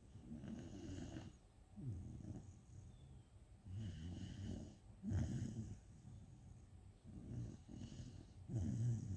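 Sleeping pit bull–type dog snoring in REM sleep: about six short, irregularly spaced bursts, the loudest about five seconds in and again near the end.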